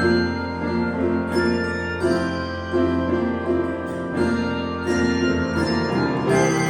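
Handbell choir ringing a slow, solemn piece: chords struck about once a second and left to ring on over one another, with a steady low tone sustained beneath.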